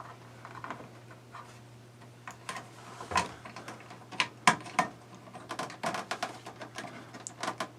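Irregular light clicks and taps of hands handling small plastic parts while a fuse is put back in at the RV's fuse panel, with a few louder knocks about three and four and a half seconds in, over a faint steady hum.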